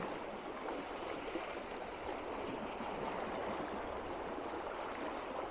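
River water flowing steadily, an even, unbroken sound of running water.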